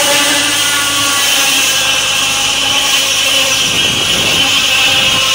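Tractor-driven circular saw bench ripping a log lengthwise, the blade cutting steadily through the wood with a loud hiss over the steady hum of the engine.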